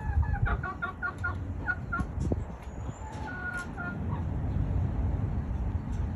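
Chickens clucking: a quick run of short clucks in the first two seconds, then a few more about three seconds in.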